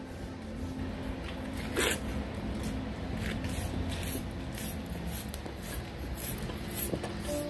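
Rasping strokes of a stripping blade raking loose undercoat out of a dog's thick double coat, about two or three strokes a second, with one louder stroke about two seconds in.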